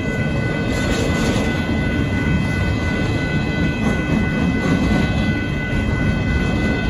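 Union Pacific intermodal freight train rolling past: a steady, loud rumble of its container and trailer cars' wheels on the rails, with steady high tones over it.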